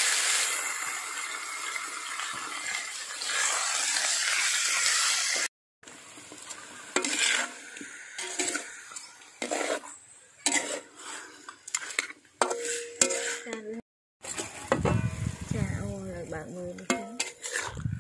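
Raw chicken pieces sizzling hard in hot oil in an aluminium wok, a loud steady hiss that stops abruptly after about five seconds. Then a metal spatula scrapes and clinks against the wok as the chicken is stirred, with a quieter sizzle in between.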